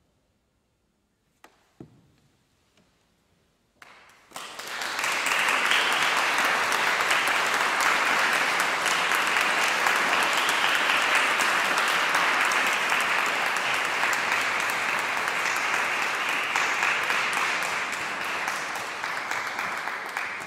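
Audience applauding: a few seconds of near silence with a couple of faint knocks, then clapping breaks out about four seconds in, holds steady and fades near the end.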